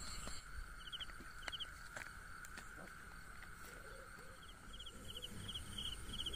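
Faint chorus of insects calling: a steady high drone with short, rapid chirping trills repeating in small groups. A few faint clicks sound in the first half.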